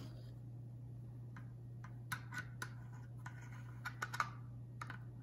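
Scattered light clicks and taps as a flat-blade screwdriver is handled and its tip set into the slot of the retaining screw on a MIOPS Splash control unit, over a faint steady low hum.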